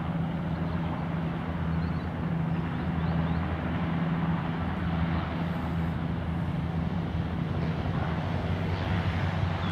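Chinook helicopter's engines and rotors running with a steady, even low drone that holds its pitch throughout.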